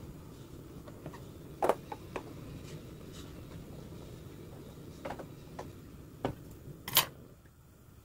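Portable gas stove burning under a pot of brine that is being brought back to the boil, a steady low rush. Over it come a few sharp clicks and knocks of kitchenware being handled; the loudest knock is about seven seconds in, and the rush drops just after it.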